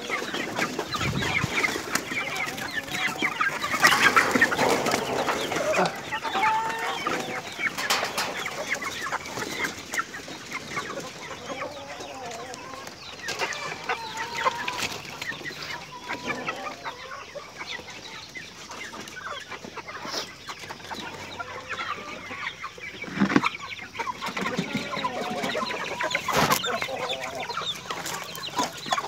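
A flock of chickens clucking and calling over one another without a break, busiest a few seconds in, with a few sharp knocks.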